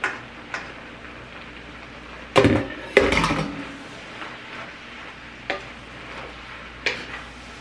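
A cooking utensil knocking and scraping against a pan while stirring food, over a low steady sizzle. Scattered light clicks, with two loud clattering knocks about two and a half and three seconds in.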